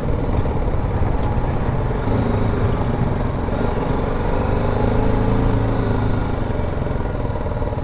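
Motorcycle engine running at low speed as the bike rolls slowly forward, a steady low hum whose pitch rises and falls a little in the middle.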